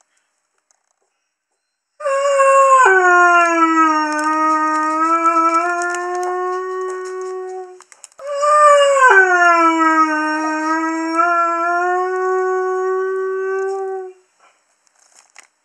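Young male Curly Coated Retriever howling: two long howls, each starting on a higher note that drops about a second in and is then held steady, the first beginning about two seconds in and the second following just after it ends.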